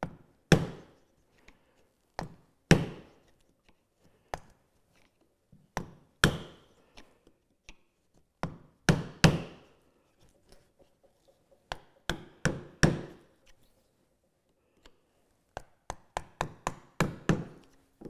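A narrow mortise chisel being struck to chop a mortise in a hardwood block. Single sharp knocks come a second or two apart, some in quick pairs or threes, then a faster run of lighter taps near the end.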